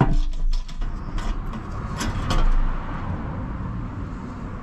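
A few metal clicks and knocks of a spanner on the bolts of a Ford Pinto's steel sump as it is undone and worked off the block, over a steady low rush.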